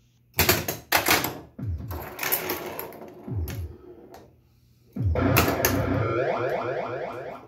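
1979 Williams Gorgar pinball machine in play. In the first few seconds there are sharp clicks and short electronic sound effects with falling tones. From about five seconds in, a steady run of the machine's electronic sounds carries on, with rapid mechanical clatter as the ball hits scoring switches.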